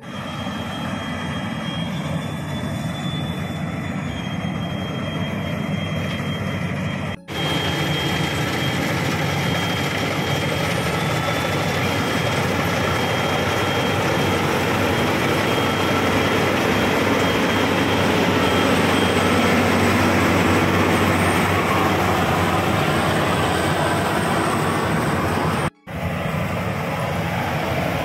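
Maxxi Bimo rice combine harvester running steadily while it harvests, a dense engine and threshing noise with no letup. The sound drops out for an instant twice.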